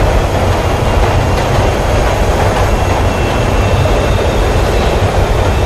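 Metro train running along the track: a steady rumble of wheels on rails.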